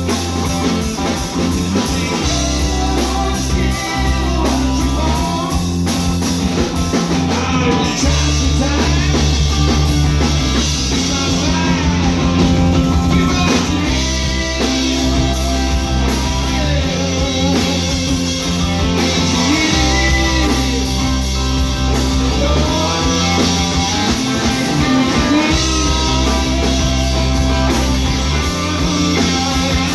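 Live rock band playing: electric guitars, bass guitar and drum kit going steadily throughout, with a voice singing over them at times.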